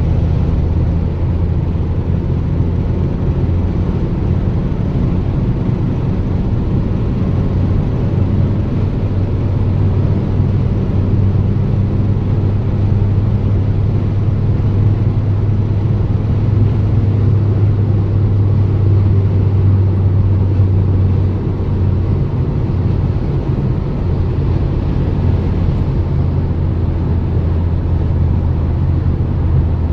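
Ford Mondeo Mk3 2.0-litre common-rail diesel engine and road noise heard from inside the moving car: a steady low drone that grows a little stronger in the middle and eases off about 21 seconds in.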